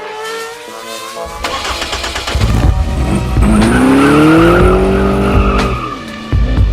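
An engine revving in rising sweeps, mixed with music that has a heavy low beat.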